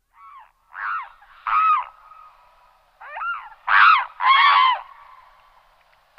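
Geese honking: a series of about six loud, nasal calls, each rising and falling in pitch, coming singly and in close pairs.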